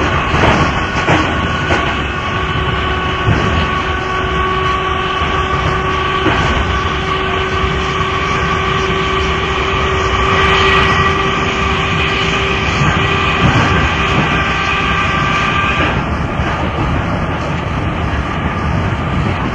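Class 2EPB electric multiple unit running, with wheels clicking over rail joints and a steady multi-pitched whine over the running noise that cuts off suddenly about three-quarters of the way through.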